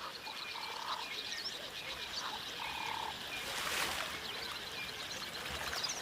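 Riverbed ambience. A short, steady animal call sounds twice, about two seconds apart, over faint high chirping, with a brief rushing, splash-like noise near four seconds in.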